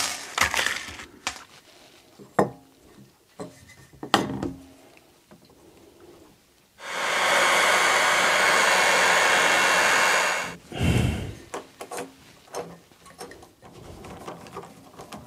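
Clicks and clatter of small stainless-steel washers, nuts and fittings being handled on a plastic tank. About seven seconds in comes a loud, steady hiss lasting about three and a half seconds that starts and stops abruptly, followed by a low thump.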